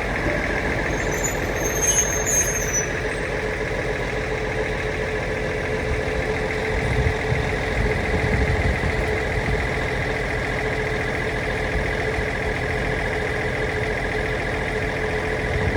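A vehicle running steadily: a low rumble with a constant motor whine held at two pitches.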